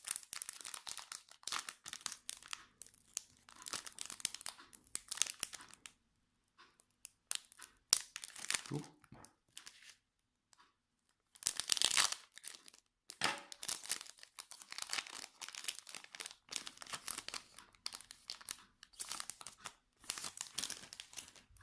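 A Yu-Gi-Oh! Raging Tempest booster pack's foil wrapper being crinkled and torn open by hand, in irregular bursts with a couple of short pauses.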